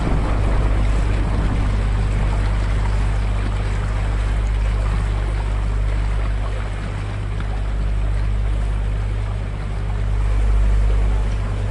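Canal tour boat's motor running steadily under way, a low constant hum over the rush of water from its wake, swelling slightly near the end.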